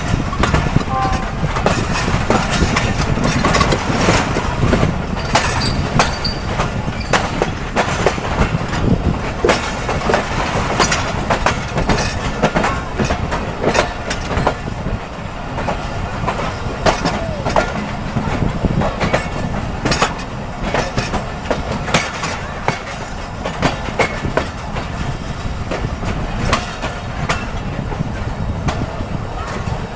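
Passenger train's wheels running over the track, a steady low rumble broken by frequent irregular metallic clicks and knocks from rail joints and points.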